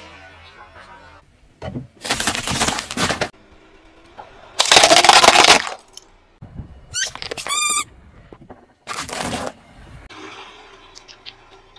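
A series of crunches and cracks as a car tyre rolls over and crushes brittle objects, among them a plastic toy hammer that shatters into pieces. There are separate bursts of a second or so each, the loudest in the middle, and a short wavering squeak a little after.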